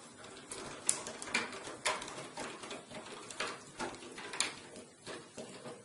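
Screwdriver driving a power supply's mounting screw into a metal computer case: a string of small irregular clicks and taps, roughly one or two a second.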